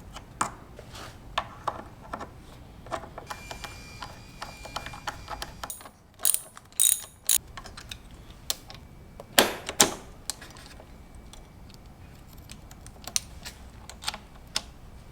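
Irregular clicks and clanks of hand tools at work on a motorcycle, with a few louder knocks about six, seven and nine and a half seconds in.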